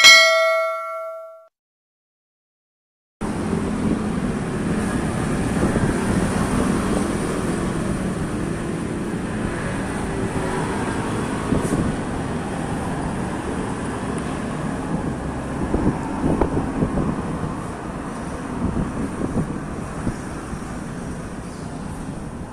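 A bell-like ding chime sounds and rings out over about a second and a half, followed by a short silence. From about three seconds in, a steady outdoor background noise with no clear single source takes over.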